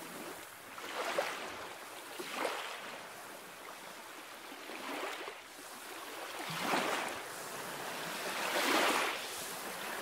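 Sea surf washing in repeated swells, a rushing hiss that rises and falls about five times.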